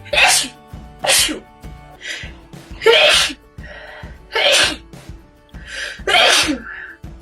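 A woman sneezing in a run of about five sharp sneezes, one to two seconds apart, with softer breaths between them.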